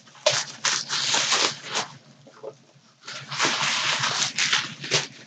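Packaging being handled and torn open: bursts of rustling and crinkling, in two spells with a short pause between them.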